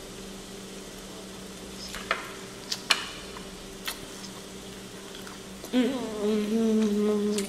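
A few sharp crackles of a cooked prawn's shell being peeled apart by hand, then, about six seconds in, a child's long closed-mouth 'mmm' hum of enjoyment, wavering at first and then held steady for under two seconds.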